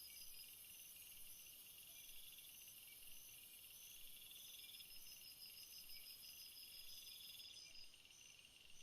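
Faint chorus of chirping insects, crickets or the like: short high chirps repeating about twice a second over longer pulsing trills that come and go every couple of seconds, with a high hiss behind.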